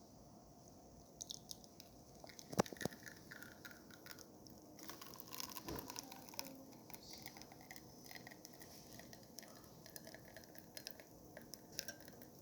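Espresso pouring from an Olympia Cremina manual lever machine into the cup during the shot: faint dripping and crackling, with scattered small clicks and a sharper click about two and a half seconds in.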